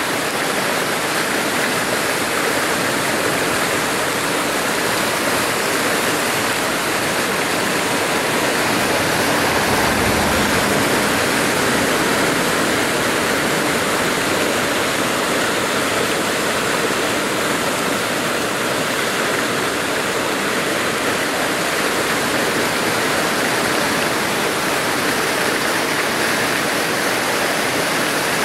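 Floodwater in a swollen, muddy river rushing past, a steady, unbroken rush of moving water, with a brief low rumble about ten seconds in.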